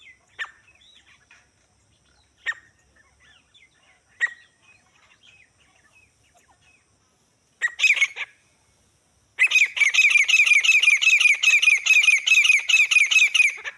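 Grey francolin (desi teetar) calling: first single sharp notes about every two seconds, then a short burst, then a fast run of repeated call notes, about five a second, through the last four seconds.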